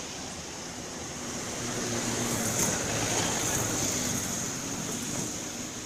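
Road traffic: a vehicle's engine and tyre noise going past, rising a little in the middle and easing off again, with no horn sounding.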